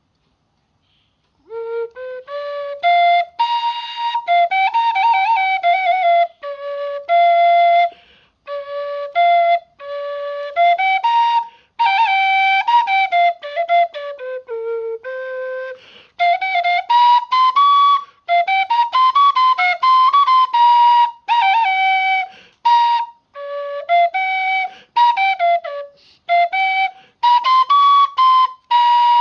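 A khlui, the Thai bamboo duct flute, playing a slow solo melody in short phrases with brief pauses and slides between notes, starting about a second and a half in.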